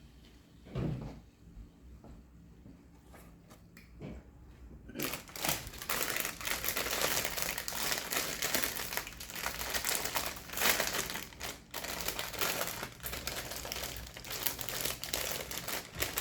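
Crinkly wrapping being handled close to the microphone: dense crinkling and rustling that starts suddenly about five seconds in and keeps on, after a few quiet seconds with a faint thump near the start.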